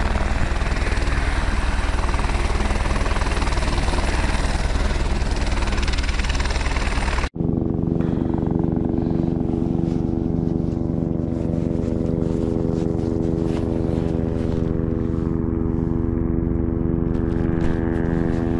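Helicopter running, a noisy drone with a fast low rotor pulse. About seven seconds in it cuts abruptly to a steadier aircraft drone with a held, even pitch.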